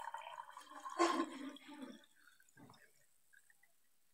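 Water poured from a steel bowl into a glass of orange squash syrup, splashing for about two seconds and then stopping.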